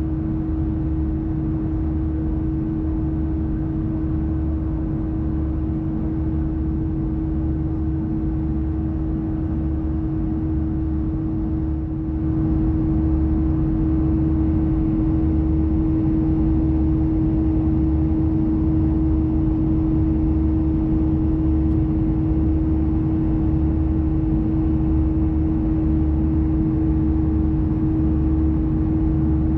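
Airbus A320-214 cabin noise in the climb: the CFM56 engines running with a steady howl from the left engine over a low rumble. It gets a little louder about twelve seconds in.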